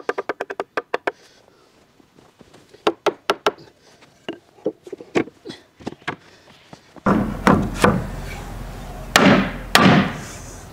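Wooden boards and panels knocked and tapped together while a mortise-and-tenon piece is fitted: a quick run of light taps at the start, scattered knocks in the middle, then a few louder wooden thuds over the last few seconds.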